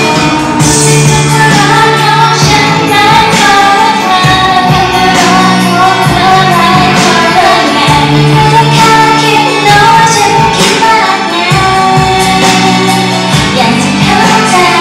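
Thai pop song performed live: a woman sings into a handheld microphone over a backing track with a steady beat and bass.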